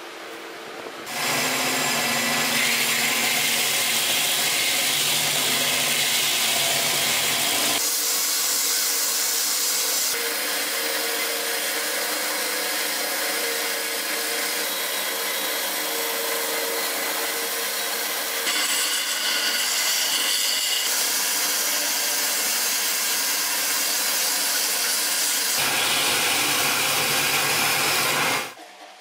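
Belt grinder running with wooden handle scales pressed against the moving belt, a steady sanding noise as the machete handle is shaped. The sound changes abruptly several times as the work shifts between passes.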